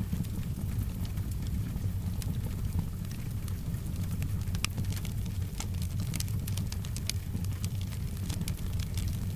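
Wood fire crackling, with scattered sharp pops over a steady low rumble, and soft rain in the background.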